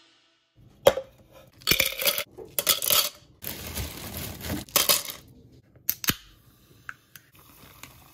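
Clinking and clattering of hard objects being handled, in a string of short sharp bursts over about five seconds, starting about a second in.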